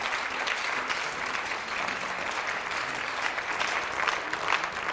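Theatre audience applauding: steady clapping from a large crowd of hands.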